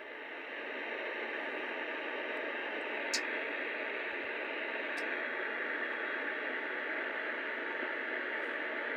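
Steady static hiss from a Lakeland model 101 handheld CB radio's speaker, receiving an empty channel with nobody answering. Two faint ticks sound around three and five seconds in.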